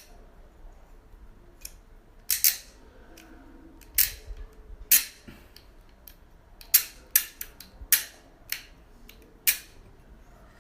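Ratchet cable cutter clicking as its handle and blade are worked by hand: about a dozen sharp, irregular clicks, the loudest about five seconds in. The blade is stiff after cutting and needs great force to move forward.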